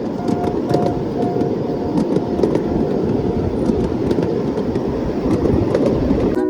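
Ride-on mini train styled as the Doctor Yellow shinkansen running along its track, with a steady rumble of wheels and motor. A short beeping tone repeats about twice a second and fades out around halfway through.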